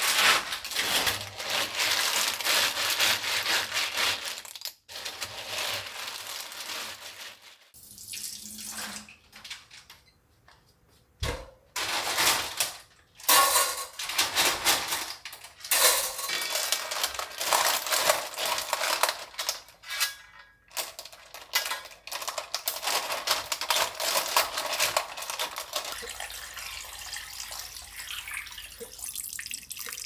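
Water running from a kitchen tap into a sink as things are washed under it, the flow stopping and starting a few times, with a few sharp clicks during a quieter pause.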